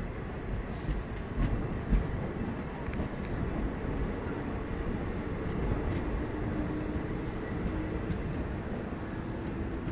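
Passenger train coach rolling slowly out of the station, a steady rumble of wheels on rails with a few clanks about one to two seconds in.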